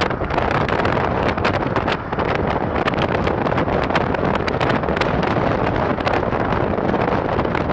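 Wind buffeting the microphone at the window of a moving car, over the car's road noise.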